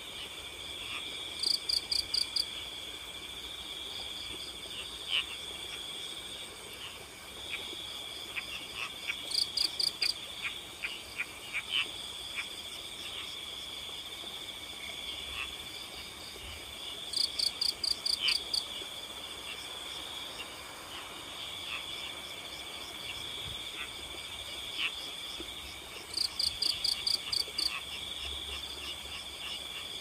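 Night chorus of crickets trilling steadily at two high pitches, with frogs giving scattered short chirps. Four times, about every eight seconds, a louder burst of about seven rapid high clicks rises above the chorus.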